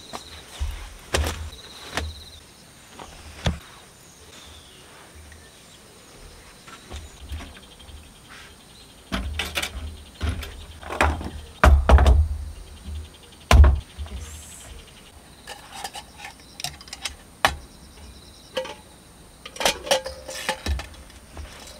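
Irregular knocks, clicks and rustling of camping gear being set up: a blanket shaken out and small folding metal camp tables unfolded and set down on a wooden deck, with a few heavier thumps about halfway through.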